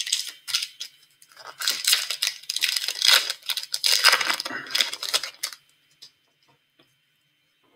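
Plastic packaging crinkling and rustling as trading cards are handled and sleeved. It goes in quick rustles for about five seconds, then stops.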